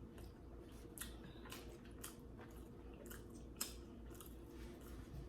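Faint chewing and mouth clicks over a low steady hum.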